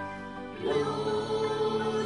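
Children's choir singing long held notes to music; a louder new note comes in a little over half a second in.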